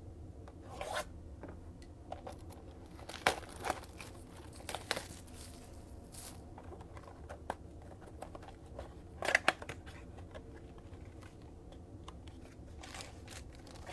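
Panini Prizm blaster box being torn open and its foil-wrapped card packs handled: scattered crinkling and tearing, with the sharpest rips a few seconds in and again a little past the middle.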